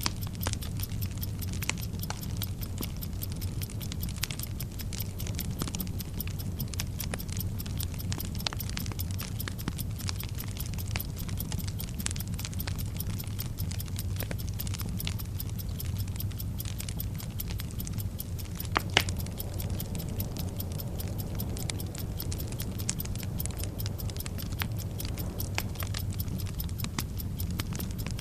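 Bomb-timer sound effect: a burning fuse crackling irregularly over a steady low rumble, with a clock ticking underneath. A single sharper pop stands out about two-thirds of the way through.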